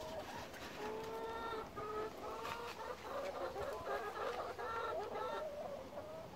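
Domestic chickens clucking: a run of short, wavering calls from about a second in, thinning out near the end.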